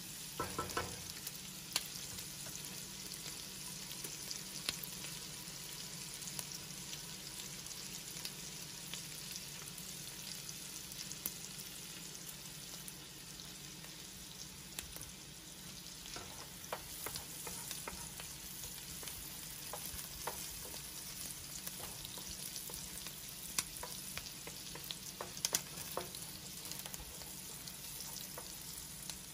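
Diced white onion sizzling steadily in melted butter in a nonstick pan, with small pops and clicks scattered throughout and a wooden spoon stirring it at times.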